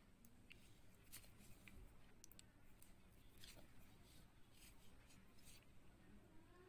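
Near silence, with faint, irregular clicks of beads knocking together as the beadwork is handled and the thread is knotted.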